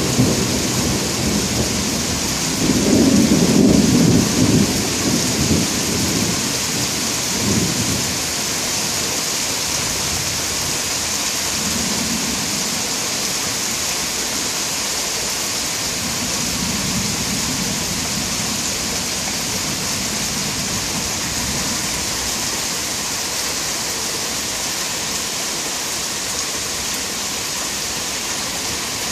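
Thunderstorm: steady rain hiss with thunder rumbling, loudest about three to four seconds in, then fainter rolls of thunder a few more times.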